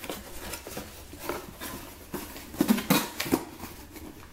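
Slips of paper rustling and crinkling as a hand rummages through them in a cardboard box, with irregular crackles and a louder cluster of crinkles about three seconds in.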